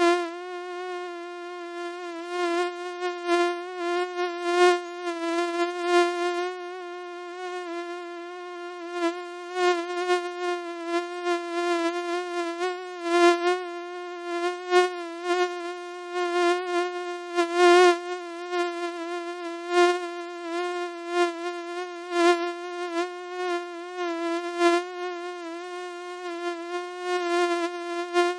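Mosquito in flight: a steady, high-pitched whine with many overtones, swelling louder and fading again over and over, as when it passes close by.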